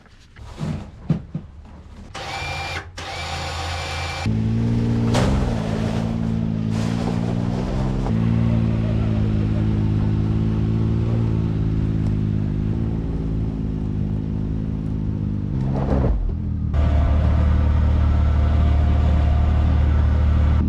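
An off-road vehicle's engine starts running about four seconds in and runs steadily, after a few clicks and a short rasping burst. Near the end the note changes and gets louder, as the winch winds the new synthetic rope onto its drum.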